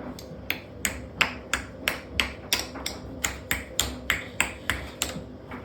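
An even series of sharp knocks, about three a second and some fifteen in all, starting about half a second in and stopping near the end, from a part of a washing machine being struck as it is broken apart.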